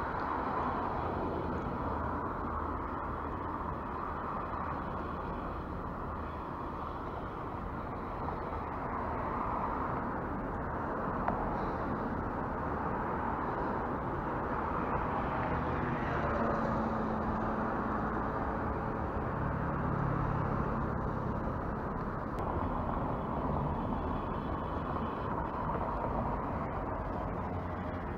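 Steady hum of city traffic, growing a little louder through the middle, with a faint engine tone passing by.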